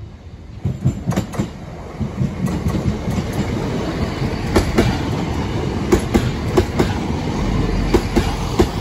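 Class 170 Turbostar diesel multiple unit passing at speed, its wheels clacking over rail joints and the level crossing in an uneven run of sharp clicks over a steady rumble. A deeper low hum joins near the end as the rear of the train goes by.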